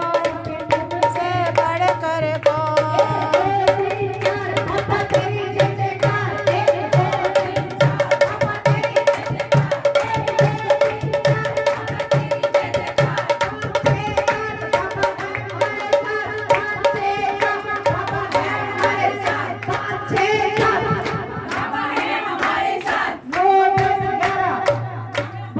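A woman singing a Haryanvi folk song (lokgeet) into a microphone, backed by a dholak drum playing a fast, steady rhythm and the hand claps of the women around her.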